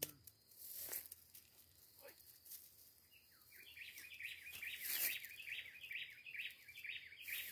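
A bird calling in a quick run of repeated chirps, about three a second, starting about three and a half seconds in, over faint riverside background noise.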